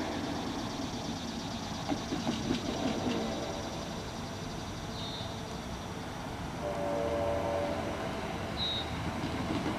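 Horn of an NJ Transit ALP-45DP locomotive sounding once for about a second, about two-thirds of the way through, over the steady rumble of the train out of sight down the line.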